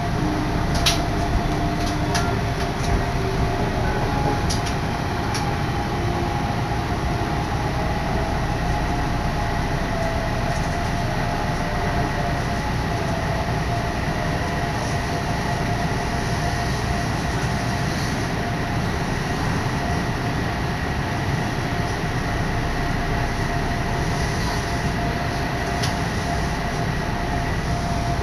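Odakyu Odawara Line commuter train running, heard from inside a car: a steady rumble of wheels on rail with a constant hum over it, and a few small clicks in the first few seconds.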